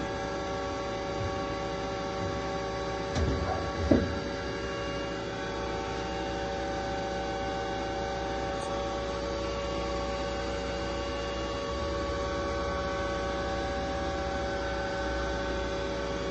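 Steady electrical hum with several fixed tones from a powered-up Takisawa TCN-2100 CNC lathe standing idle. A short clunk ending in a sharp click comes about four seconds in.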